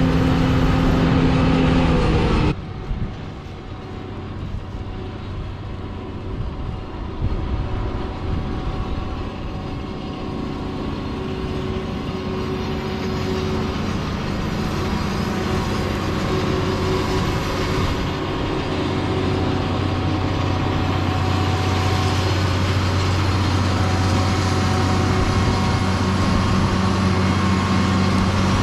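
John Deere 9570 STS combine harvester running steadily, a low machine hum with a steady drone. A couple of seconds in the sound cuts abruptly to a quieter hum, which then grows gradually louder.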